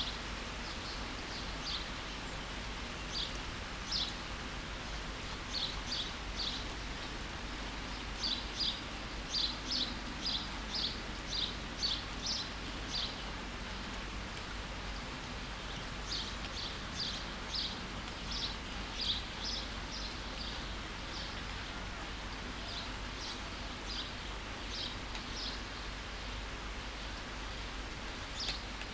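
Steady rain falling, with a small bird chirping over it: short high notes in quick runs of several, thickest through the middle.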